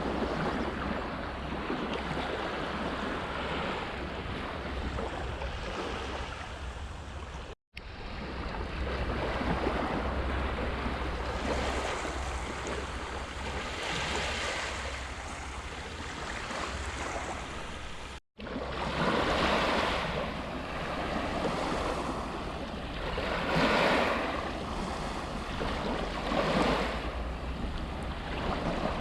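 Sea waves washing onto a beach, swelling and ebbing every few seconds, with wind rumbling on the microphone. The sound cuts out for an instant twice.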